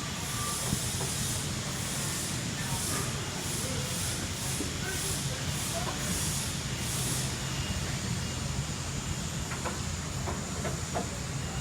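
Steady mechanical noise: a low rumble under a broad hiss that holds level throughout, with a few faint ticks near the end.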